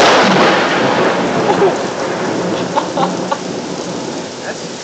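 Thunder from a close lightning strike rumbling and slowly dying away, over steady heavy rain.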